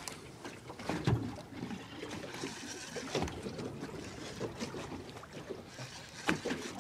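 Water slapping against the hull of a small fishing boat at sea, with three louder knocks about one, three and six seconds in.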